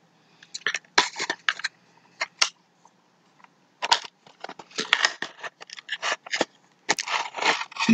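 A small cardboard toy box and its plastic packaging being handled and opened from the top flap: irregular crinkles, clicks and rustles, sparse at first and busier from about four seconds in.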